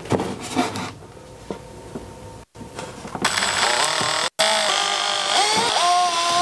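A few handling knocks and clicks, then an electric drill/driver running in spells, its motor whine stepping and gliding in pitch as the speed changes.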